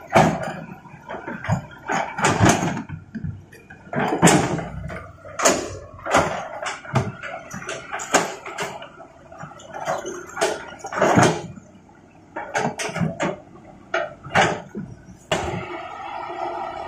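Hitachi 200-class excavator's steel bucket digging rocky soil, with irregular clanks, knocks and scrapes as it strikes and drags stones. Near the end a steady engine note comes up under the knocks as the machine works harder.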